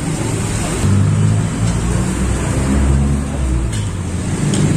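A motor vehicle's engine passing on the street, its low rumble swelling about a second in and easing off near the end.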